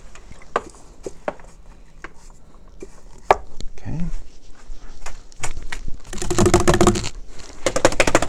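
Oil paintbrush being cleaned: scattered small taps and knocks, then from about six seconds in two bouts of fast rattling knocks as the brush is worked against its cleaning container.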